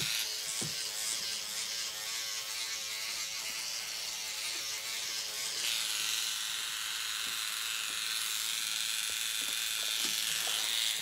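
SkinPen electric microneedling pen buzzing steadily as its needle cartridge is run over the skin of the neck.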